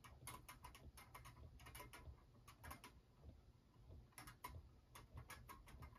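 Faint, irregular light clicking and ticking, several clicks a second, from a battery-powered magnetic kinetic desk toy whose arms of silver balls are swinging and spinning.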